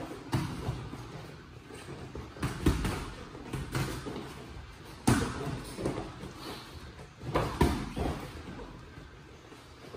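Irregular thuds and slaps of boxing gloves landing during a sparring exchange, a handful of sharp impacts with the loudest about five seconds in and two in quick succession a little after seven seconds.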